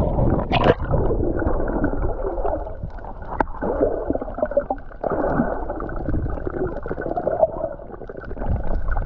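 Muffled underwater sound picked up by a submerged camera: a dull rumble of moving water with gurgling and bubbling, and a couple of sharp clicks.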